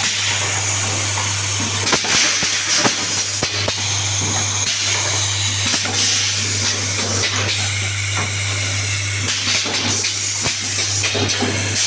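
Automatic confetti filling machine running: a steady low hum under a high hiss, with scattered short clicks and knocks from its working parts.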